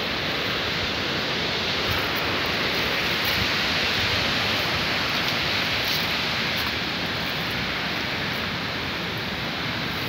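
Steady, even rushing noise that holds at one level throughout, with no distinct events in it.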